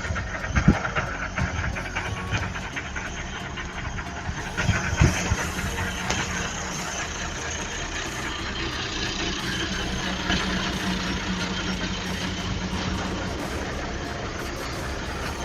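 Valtra BH 180 tractor's diesel engine running steadily while pulling a weeding blade, with low knocks about a second in and again about five seconds in.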